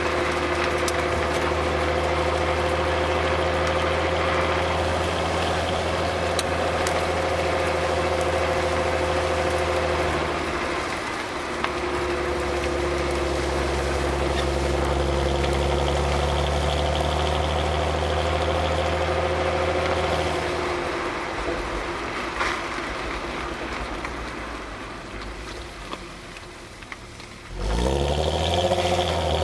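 Stock exhaust of a VW Golf R32 (MkV) with its 3.2-litre VR6, picked up at the rear bumper. It runs at a steady engine note with a short dip partway through, then falls gradually quieter for several seconds. Near the end the throttle opens suddenly and the note climbs in pitch as the engine revs up.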